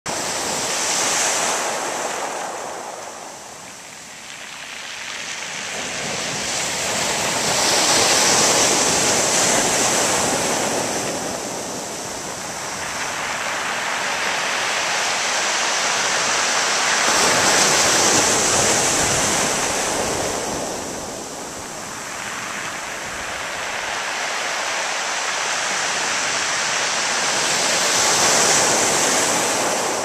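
Small waves breaking and washing up a pebble beach. The surf swells and eases every eight to ten seconds.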